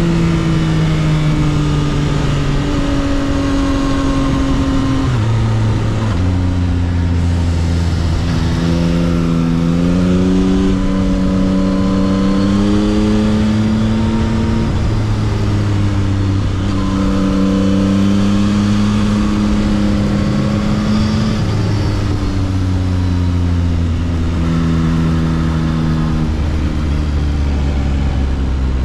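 2022 Yamaha XSR900's three-cylinder engine through its stock exhaust under way, revs rising and falling with a series of gear changes, over steady wind rush.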